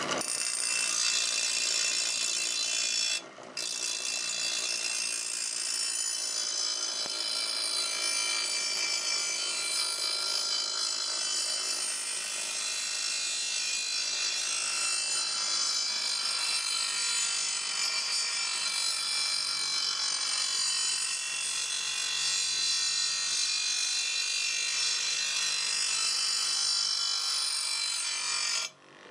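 Grinder sharpening a steel lawnmower blade: a steady, harsh grinding of metal against the wheel. It breaks off for a moment about three seconds in and stops near the end.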